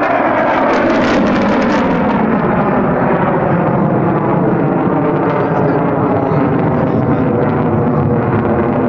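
F-22 Raptor's twin Pratt & Whitney F119 turbofan engines: loud, steady jet noise as the fighter flies its display manoeuvres.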